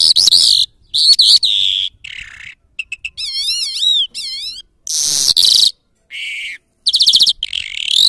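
Caged lark singing: a fast, varied run of phrases made of chirps, rapid trills and wavering whistled notes, broken by short pauses.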